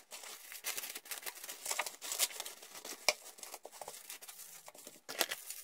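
Plastic cling film crinkling and crackling in quick, irregular bursts as it is stretched tight and pressed down over ramekins, with one sharper crack about three seconds in.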